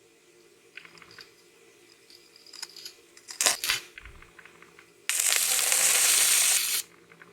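Short burst of a stick-welding arc crackling and hissing for under two seconds, starting and cutting off suddenly, from a YesWelder 205 A stick welder. A couple of sharp knocks come before it.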